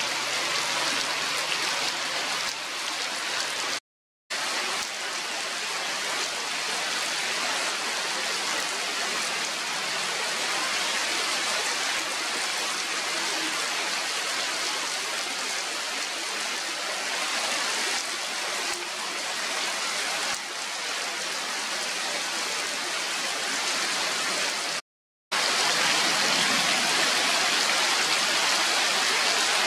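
Heavy rain falling steadily, a dense hiss of drops pattering onto stone paving and puddles. The sound cuts out for a moment twice and is a little louder after the second gap.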